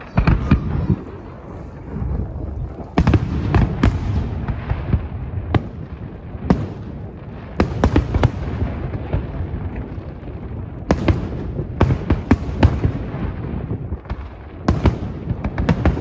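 Aerial fireworks shells bursting in an uneven barrage of sharp bangs, some in quick clusters, over a continuous low rumble.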